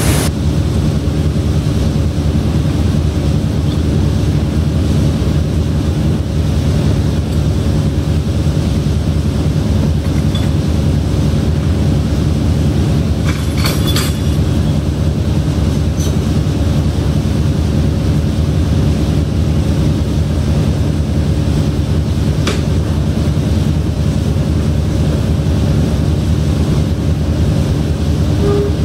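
A fishing trawler's engine and deck machinery running with a steady low drone, with a few faint ticks around the middle.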